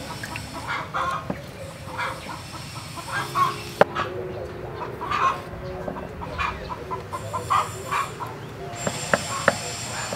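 Knife working small fish on a thick wooden chopping board, with a few sharp knocks of the blade on the wood: the loudest about four seconds in, and three in quick succession near the end. Chickens cluck throughout.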